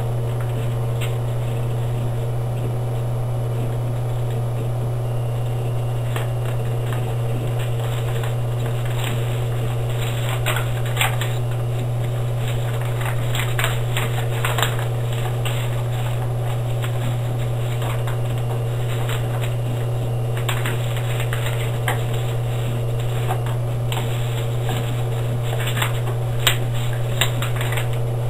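A sheet of paper being folded and creased by hand, with scattered crisp rustles and crackles, over a loud steady low hum.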